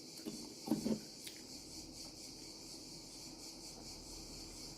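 Steady high-pitched chirring of crickets in the background. There are two short, soft sounds a little under a second in.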